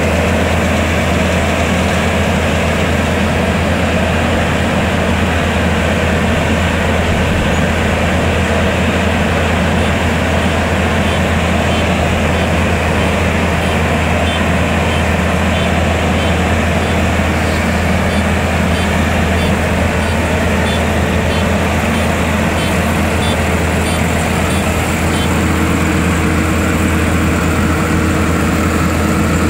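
Kubota DR120 crawler combine harvester running close by while harvesting rice: a loud, steady drone of engine and machinery with a strong low hum, unchanging throughout.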